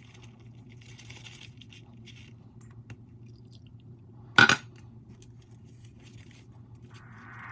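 Wooden stick stirring a thick powder-and-water mix in a paper cup, a faint scraping, with one loud glass clink from the measuring jug about four and a half seconds in.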